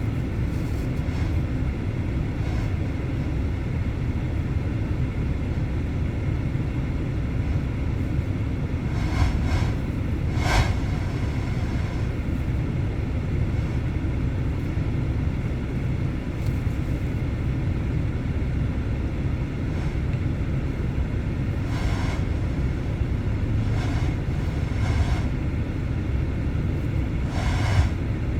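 A 2018 Nissan Kicks idling, heard as a steady low rumble inside the cabin. A few short clicks and knocks sound over it, the sharpest about ten seconds in.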